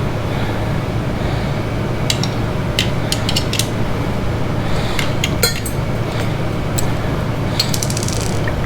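Metal clinks and clicks of a 15 mm socket tool against the exhaust clamp hardware, in scattered groups with a quick run of clicks near the end, over a steady low hum.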